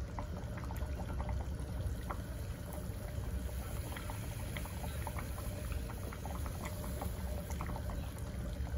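A saucepan of butter-and-broth seafood sauce boiling, with steady bubbling and many small pops. Coca-Cola is poured from a metal measuring cup into the pot.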